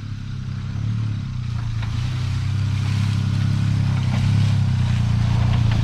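Suzuki Jimny JA11's small 660 cc three-cylinder engine running steadily under load as it climbs, growing gradually louder as it comes closer.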